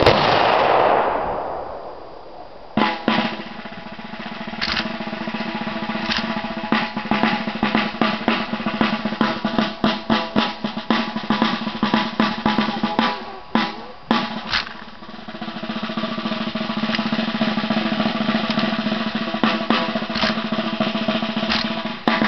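A rifle volley of blank rounds fired skyward by a ceremonial honour guard, its crack dying away over about two seconds. From about three seconds in, military march music plays, with snare drum rolls over steady held band notes.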